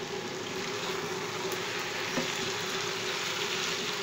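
Sliced potatoes and onions frying in oil in a pan, a steady sizzle, with one light knock about halfway through.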